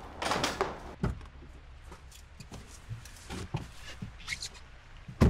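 Someone getting into a car: rustling and a knock, scattered small clicks as they settle into the driver's seat, then the car door shutting with a loud thump near the end.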